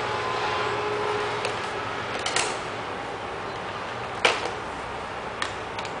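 Scattered plastic clicks and knocks from a robot vacuum being handled and turned over on a tile floor while its mop pad is taken off, the sharpest knock about four seconds in, over a steady hiss.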